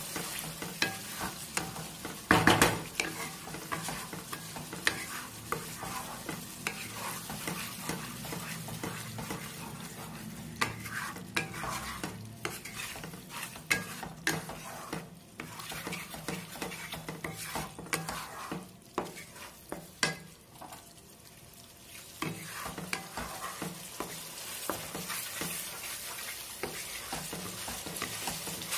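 Wooden spatula stirring and scraping a thick spice paste around a non-stick kadai while it sizzles in mustard oil. This is the masala being fried down (kosha) until the oil separates. The scrapes come irregularly over the sizzle, the loudest about two and a half seconds in, with a short quieter lull about two-thirds of the way through.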